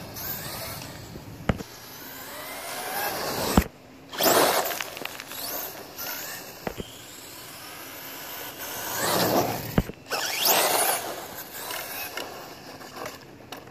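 Brushless electric motor of a radio-controlled crawler truck on a 3S battery, whining up and down in pitch as it speeds up and slows, with its tyres hissing through water on wet asphalt. The sound swells twice, about four and about nine seconds in, and a few sharp clicks fall between.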